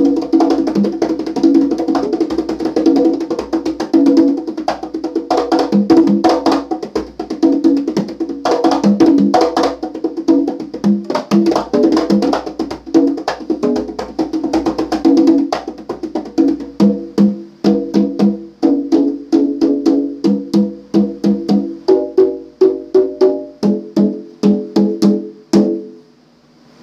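Conga drums played with bare hands: a busy run of ringing open tones and sharper strokes across several drums, settling about two-thirds of the way through into a steadier pattern of evenly spaced strokes on two pitches, then stopping about a second before the end.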